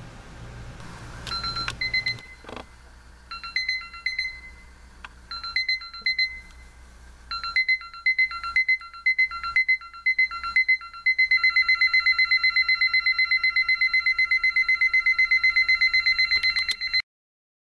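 Seiko QXE021WLH bedside alarm clock sounding its ascending (crescendo) beep alarm, which is really piercing. High beeps come first in short groups with pauses, grow louder and busier, and about eleven seconds in turn into fast continuous beeping, which cuts off suddenly near the end.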